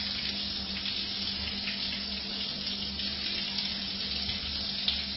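Water spraying from a shower onto a tiled floor and splashing toward a floor drain: a steady hiss of falling water, with a low steady hum underneath.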